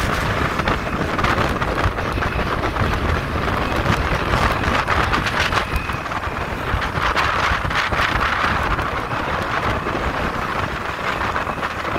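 Steady wind rushing over the microphone of a moving motorcycle, mixed with low road and engine rumble.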